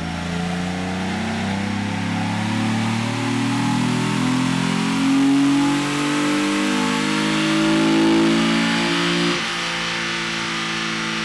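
Mazda KLZE 2.5-litre V6 under full load on a chassis dyno, its note climbing slowly in pitch. About nine seconds in it drops abruptly to a lower, steadier running as the throttle comes off.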